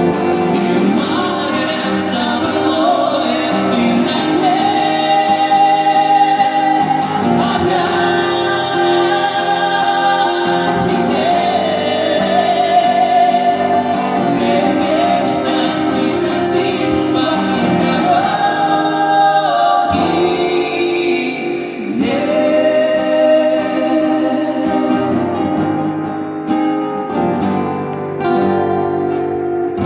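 A song with long held sung notes over instrumental accompaniment, fading near the end.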